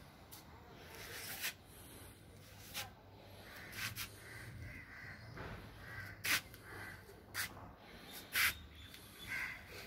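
A bird giving several short calls over faint outdoor background noise, with a few sharp clicks, the loudest about six and eight and a half seconds in.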